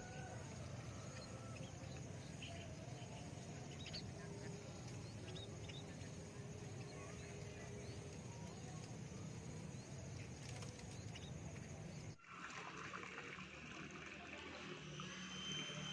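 Scattered short bird chirps over a steady low hum. About twelve seconds in the sound cuts abruptly to a different, hissier background.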